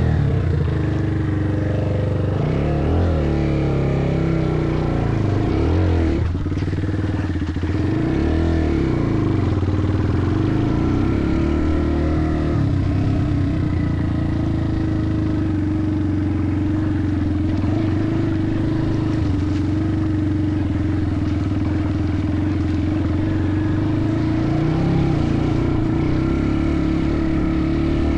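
Off-road motorcycle engine running steadily under way, its pitch rising and falling with the throttle.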